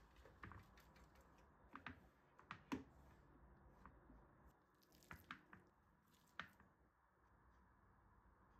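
Near silence with a handful of faint taps and clicks from handling: a plastic food-processor bowl being tipped out and a hand spreading breadcrumbs on a woven bamboo tray.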